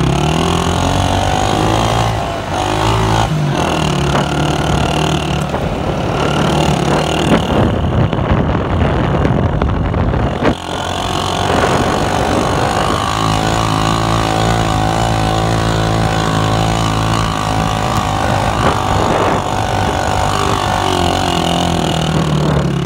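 Motorcycle engine running as the bike is ridden over desert sand, its pitch shifting with the throttle, dipping briefly about ten seconds in, then holding steady for several seconds.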